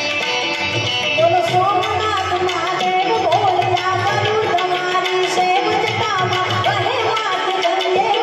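Live Gujarati devotional music: harmonium and tabla playing an aarti with small hand cymbals keeping time, and a woman's voice singing a wavering melody over them.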